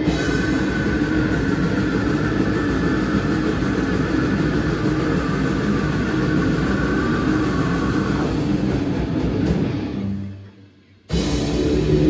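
Metal band playing live at full volume, a dense wall of distorted guitars and drums. About ten seconds in the music fades and cuts out for under a second, then the band crashes back in abruptly.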